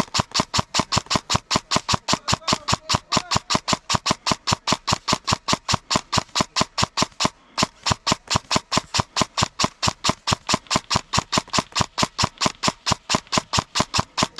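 A rapid, perfectly regular clicking, about five or six sharp clicks a second, with a short break about halfway through.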